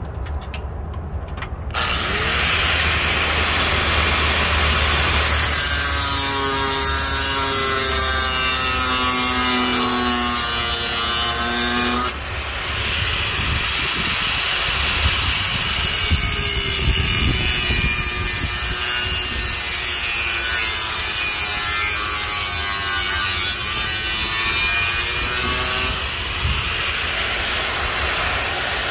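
Angle grinder with a cut-off disc starting up about two seconds in and cutting, its whine dipping and recovering as the disc bites into the material. It stops briefly about twelve seconds in, starts again, and dies down near the end.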